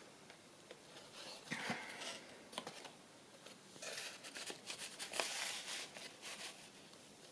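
Paper journal cards rustling, sliding and tapping as they are handled and sorted through, in two stretches of small scrapes and clicks, the second one longer.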